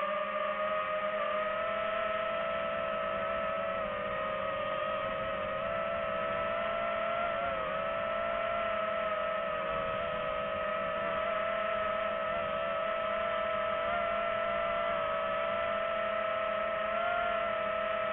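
Quadcopter drone's motors and propellers whining steadily in flight, a hum with two strong tones whose pitch wavers slightly now and then.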